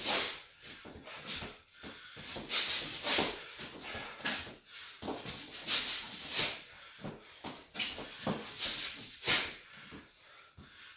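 A boxer's sharp hissing exhalations, one with each hook thrown while shadowboxing: about a dozen short breaths, some single and some in quick pairs.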